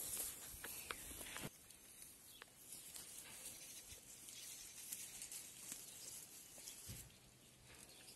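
Faint outdoor ambience with a high hiss. In the first second and a half there are a few soft clicks of a goat cropping grass right at the microphone.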